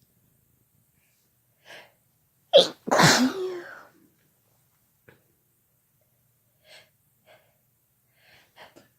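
A person sneezes once about three seconds in: a quick, sharp gasping intake, then a loud sneeze whose pitch falls away. A few faint short sounds follow.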